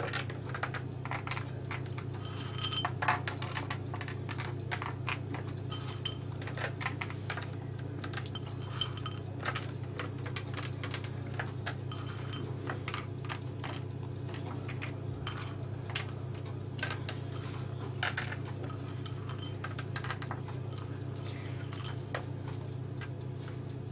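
Pine nuts clicking and rattling against a small ceramic bowl as fingers pick out pinches, many small irregular clicks over a steady low hum.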